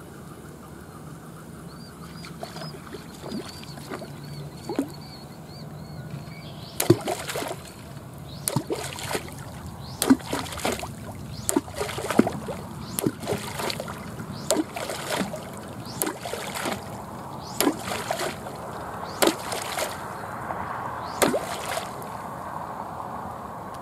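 A hooked fish thrashing at the water's surface near the bank: a long run of irregular splashes, one or two a second, beginning about seven seconds in.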